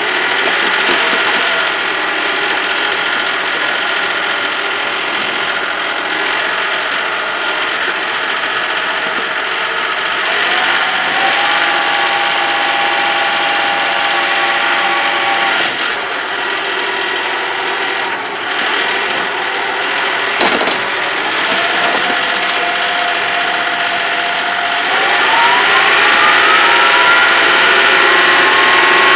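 Tractor driving on the road, heard from inside the cab: the engine runs under a steady transmission gear whine. The whine holds level for stretches and rises in pitch as the tractor speeds up near the end, with one sharp click about twenty seconds in.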